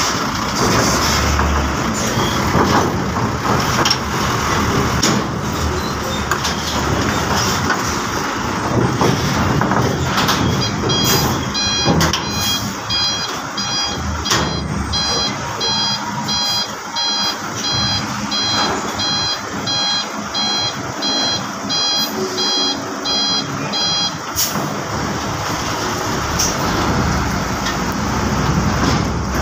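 A diesel Hino Ranger box truck running as it creeps slowly onto a ferry's ramp. About a third of the way in, a repeating electronic reversing-alarm beep starts up and carries on until near the end. A few sharp knocks are heard along the way.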